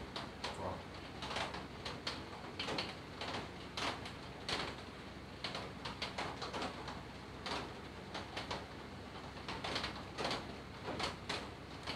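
Faint, irregular small clicks and scrapes of hands and a soldering iron working on a plastic appliance housing and its wires, over a steady low background hum.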